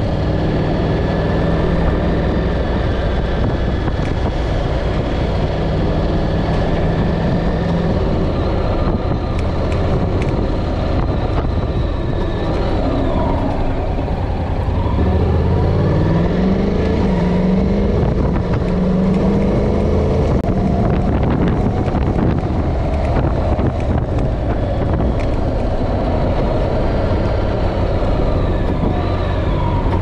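Honda NC750's parallel-twin engine running under way on the road. It holds steady at first, then about halfway through its pitch climbs and drops back several times as it pulls through the gears, and it runs a little louder after that.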